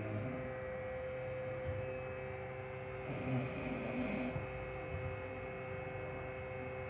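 Snoring: slow rumbling breaths, one louder about three seconds in lasting just over a second, over a steady electrical hum.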